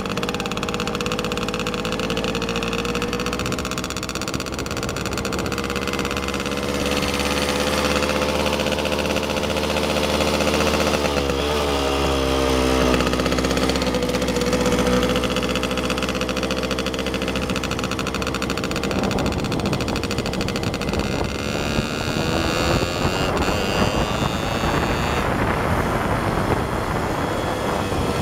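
Engine of a moving vehicle, heard from on board, running steadily. Its pitch dips and recovers about eleven seconds in, and a rougher, noisier sound takes over in the last third.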